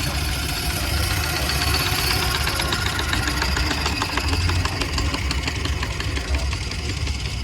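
An engine running steadily, with a low rumble of wind on the microphone.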